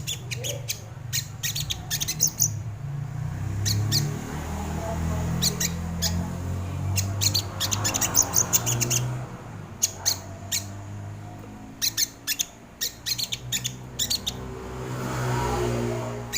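Crimson sunbird (sogon) calling: rapid, sharp, high chipping notes in short bursts of several, repeated every second or two, over a low steady background hum.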